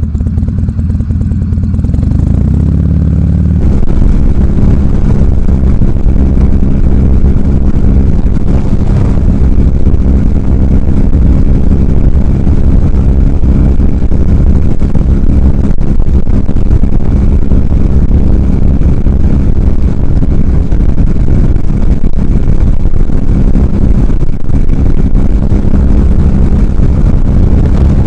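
Motorcycle engine running under way, rising in pitch over the first few seconds as it accelerates and then holding steady at cruising speed, with wind and road noise over it.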